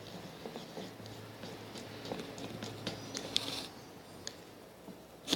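White-glue (PVA) slime being worked by hand, giving a stream of small sticky clicks and pops, with a short hiss about three seconds in.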